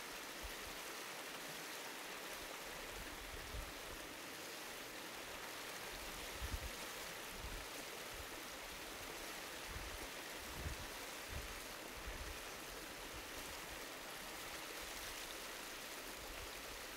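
Shallow hot-spring runoff stream rushing and splashing over rocks in a steady, even rush of water.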